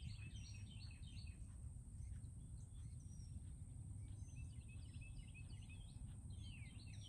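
Small birds chirping and twittering in bursts, near the start, about four seconds in and again near the end, over a steady low outdoor rumble.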